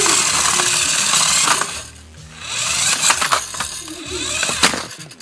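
Radio-controlled car driving, picked up by a phone taped to it: gear and motor noise with a steady clatter of small clicks and rattles, and a sharp knock about four and a half seconds in.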